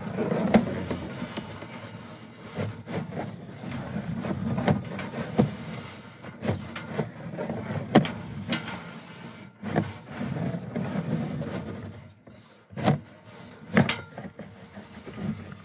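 Irregular clicks and knocks over a low rubbing noise as a pipe-inspection camera's push cable is fed into the pipe.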